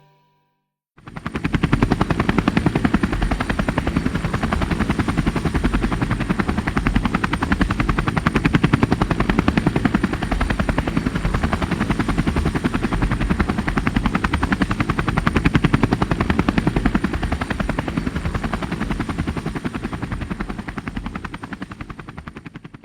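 Jet ski engine running steadily with a rapid, even pulsing. It starts about a second in and fades out near the end.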